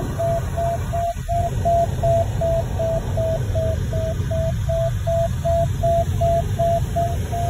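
Glider variometer beeping about twice a second at a steady mid pitch, the audio signal that the glider is climbing. Under it runs a steady low rush of airflow in the cockpit.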